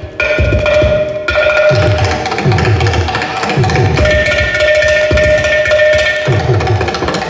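Mridangam and ghatam playing a Carnatic percussion solo (tani avartanam). Quick strokes run throughout, and low booming strokes slide down in pitch about once a second, over a steady ringing tone.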